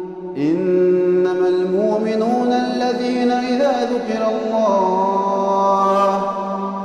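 Quran recitation: a single voice chanting a verse in Arabic in long, ornamented held notes that slide between pitches, the melody stepping upward over the first few seconds.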